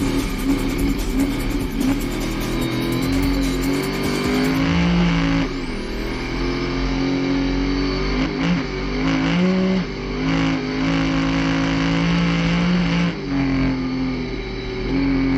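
Pro 2 short-course off-road race truck's V8 engine running hard at high revs. Its pitch holds steady, then dips and recovers several times as the throttle is lifted or gears change.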